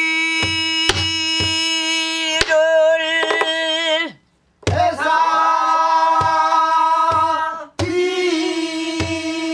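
A woman singing pansori in long held, slowly bending notes, in three phrases with brief breaths between them. A buk barrel drum accompanies her with scattered stick strokes and open-hand thuds.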